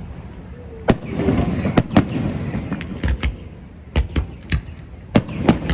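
Fireworks going off in a rapid, irregular series of sharp bangs, about a dozen in under six seconds, with crackling between the bangs early on.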